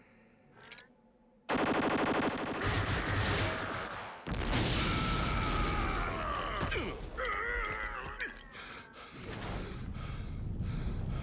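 Cartoon battle sound effects: a sudden rapid burst of gunfire-like blaster shots about a second and a half in, then loud blasts and noise with falling and wavering whine tones, settling into a steady rumble near the end.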